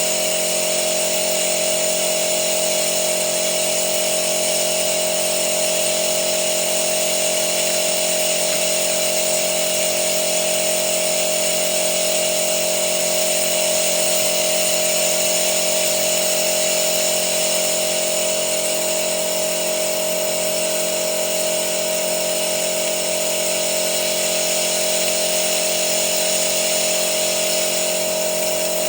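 A small motor or pump running steadily with a fixed-pitch whine that does not change.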